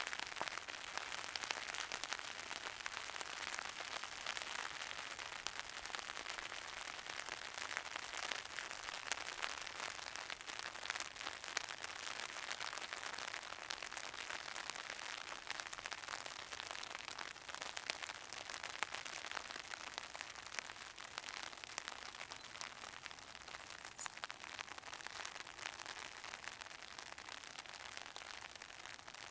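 Steady rain falling, a dense patter of fine drops, easing slightly near the end. A single sharp click sounds about three-quarters of the way through.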